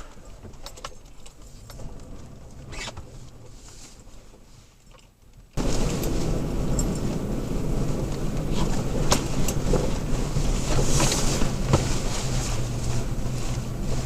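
Toyota Tacoma pickup driving on a rough forest road: a low engine hum with scattered ticks, rattles and knocks from the cab and the road surface. About five and a half seconds in, it becomes abruptly much louder and denser.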